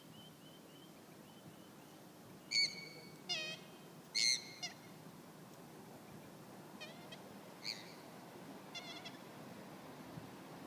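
Bird calls: several short, loud calls, the loudest three between about two and a half and four and a half seconds in, followed by a few fainter calls of the same kind.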